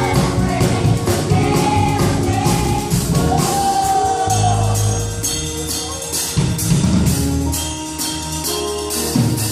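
Church youth choir singing a gospel song with the band, percussion keeping a steady beat.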